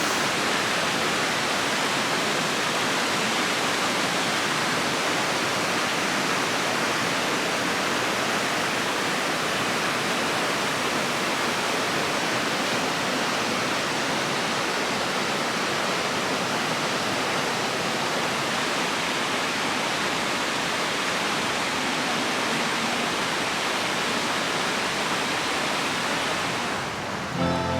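Steady rushing of a rainforest creek in high water, white water pouring through a rocky pool. It cuts off abruptly near the end.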